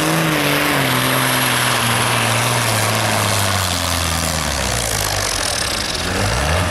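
Ford 5000 pulling tractor's diesel engine working flat out against the weight sledge. Its pitch sags steadily over the first four seconds or so as the load drags the revs down, then climbs again near the end.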